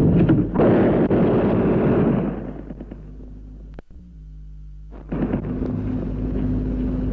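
Gunfire and explosion sound effects: a sudden loud blast at the start that dies away over about two seconds, then a fresh rumbling burst rising about five seconds in.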